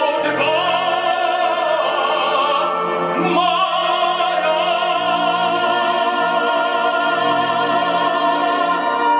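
An operatic voice singing with an orchestra, holding long notes with a wide vibrato. One phrase ends about two and a half seconds in, then a single long note is held.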